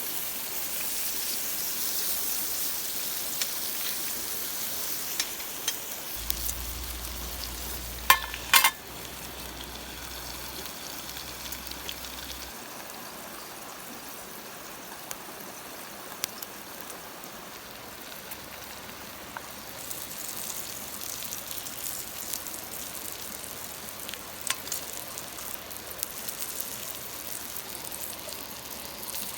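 Food sizzling and frying in a pan, the hiss strongest at first, easing around the middle and picking up again later. A few sharp clacks about eight seconds in are the loudest sounds.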